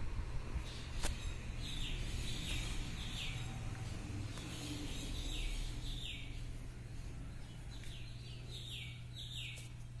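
Low steady rumble of a running BLDC ceiling fan and the air it moves, with a bird giving a string of short, downward-falling chirps at uneven intervals over it. A single sharp click about a second in.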